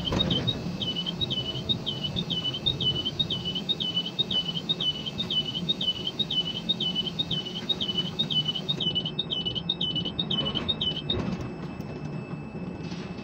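Container crane's electronic warning beeper sounding about twice a second over the steady hum of the crane's machinery as the spreader is worked on its hoist ropes; the beeping stops about eleven seconds in.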